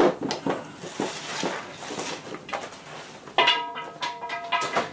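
Household items being moved and set down by hand: a string of knocks and metallic clatter. About three and a half seconds in, a metal object rings for about a second.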